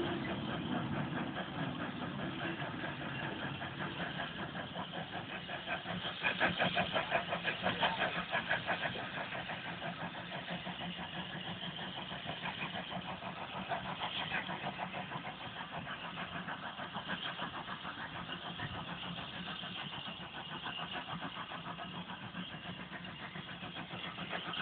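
An engine running steadily with a fast, regular knocking beat, loudest about six to nine seconds in.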